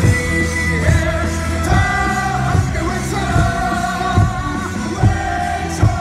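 Baseball cheer song blaring over the stadium speakers, with fans singing along to a steady thumping beat.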